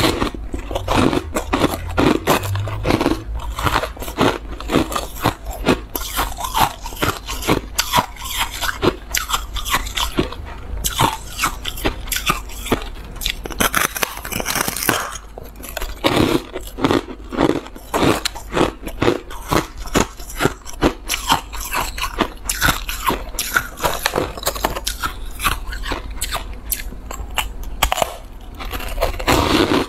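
Packed white shaved ice being bitten and chewed: rapid crunching, several crisp crunches a second, one after another.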